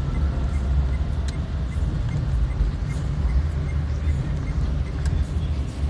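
Car engine and road noise heard from inside the cabin while driving: a steady low rumble, with a faint, even ticking about two or three times a second.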